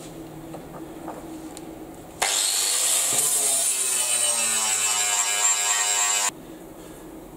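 Compressed-air blow gun blowing dust off the workpiece: a loud, steady hiss that starts suddenly about two seconds in, its tone slowly sliding lower, and cuts off sharply after about four seconds.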